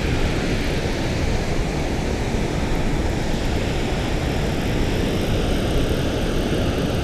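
Steady rushing roar of water pouring over a river spillway.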